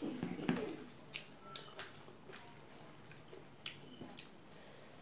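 Close-miked mukbang eating sounds: scattered sharp, wet mouth clicks and smacks from chewing. A louder rustle and clatter of food being handled comes in the first second.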